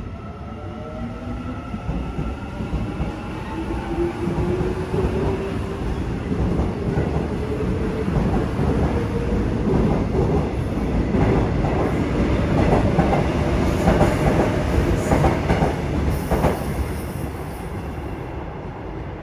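Korail Line 1 electric multiple-unit train accelerating past, its motor whine rising in pitch over the first several seconds. The wheels then clatter over rail joints and points, and the sound fades near the end as the train pulls away.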